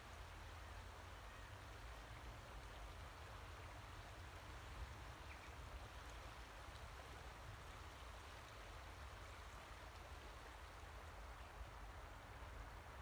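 Faint, steady rush of the River Wharfe flowing, over a low rumble.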